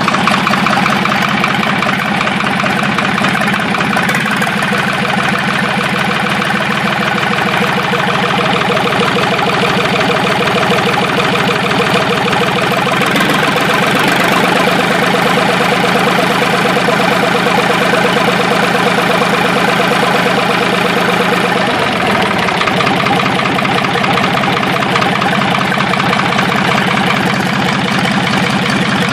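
Ford 3000 tractor's three-cylinder engine running steadily with the rocker cover off, its exposed valve train of rocker arms and springs working in a fast, even rhythm.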